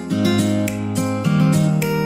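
Background music: an upbeat track with strummed acoustic guitar over a steady beat.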